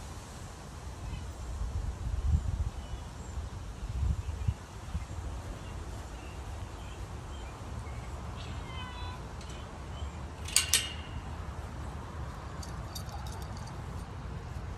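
A domestic cat meowing twice: once about eight and a half seconds in, then a short, sharper meow about two seconds later. A steady low rumble from the microphone sits underneath, with a few bumps early on.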